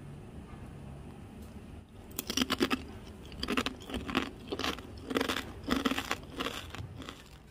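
Crisp, thin cassava chips crunching: a run of short crackly crunches, about two a second, starting some two seconds in.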